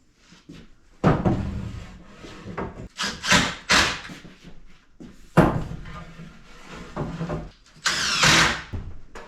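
Canopy bows being fitted onto a boat's canopy frame: hard knocks at about a second in and again past halfway, short scrapes between, and a longer scraping slide near the end.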